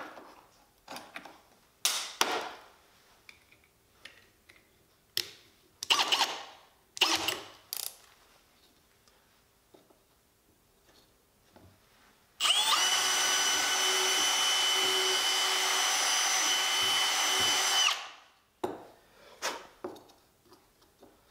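Clicks and knocks of drill bits being handled in a plastic bit case and small wooden blocks being set on the workbench, then a cordless drill runs steadily for about five seconds, drilling a hole in a wooden cleat block.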